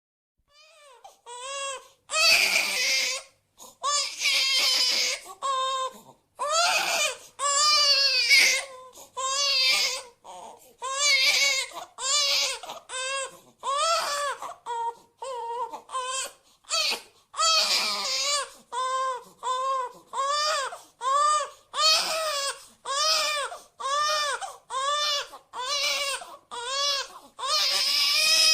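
Infant crying: faint whimpers build into a few long wails, then settle into a steady run of short cries about one a second, each rising and falling in pitch.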